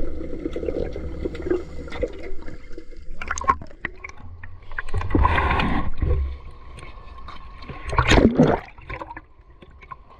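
Sea water splashing and gurgling close around the microphone as a swimmer moves through the water, with two louder surges of splashing about five and eight seconds in.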